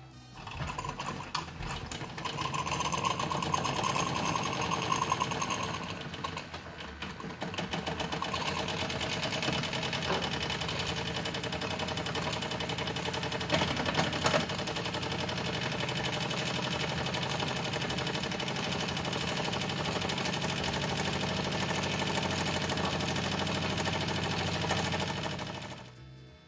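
Wilesco D16el model steam engine running at speed, with a fast, even mechanical rhythm. A hiss sounds for a few seconds near the start, and the sound cuts off near the end.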